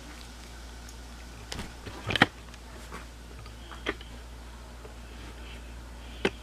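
Handling noise from two smartphones being moved and set side by side: a few sharp clicks and knocks, the loudest a quick cluster about two seconds in, one more near four seconds and a last near the end.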